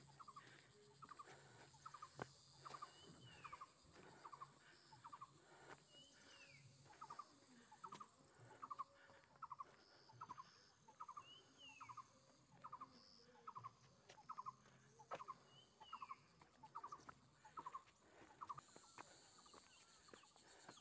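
Faint birdsong: a steady run of short, clipped notes several times a second, with a higher down-slurred call every few seconds, over a thin high hiss of insects.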